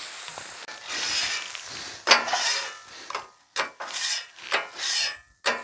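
Seltzer water sizzling and steaming on a hot steel flat-top griddle while a steel bench scraper scrapes across the cooktop in several strokes, lifting burnt-on grease.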